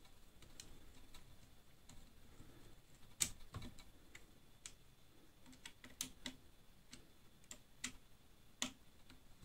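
Faint, irregular clicks and taps of small screws and plastic fan parts being handled and fitted on a Prusa 3D printer's extruder. The sharpest come about three seconds in and around six seconds.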